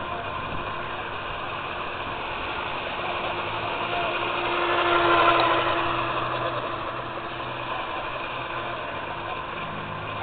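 Small RC boat's 23 g brushless outrunner motor on 2S, spinning a 25 mm metal prop, running on the water: its whine grows louder as the boat passes close about five seconds in, then fades, over steady background noise.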